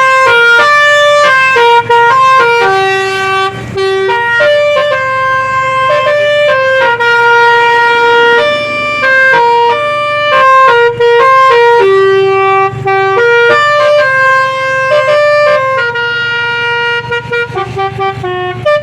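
A car's 'basuri' telolet musical horn playing a loud tune of held notes that step up and down in pitch, breaking into short quick toots near the end.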